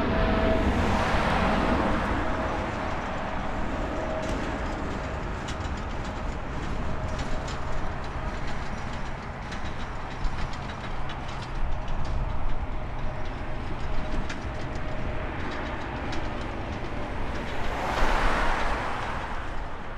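Wide-body jet airliner's engines at takeoff power, loudest at the start and fading as it climbs away, with a steady engine tone dying out over a low continuing rumble. The rumble swells briefly about eighteen seconds in.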